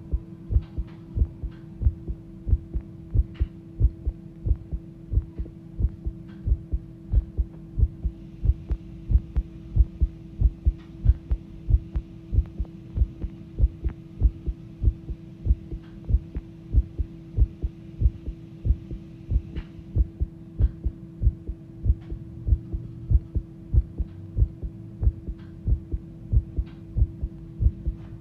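A person's heart beating fast, recorded up close: a rapid, regular run of low thumps over a steady low hum.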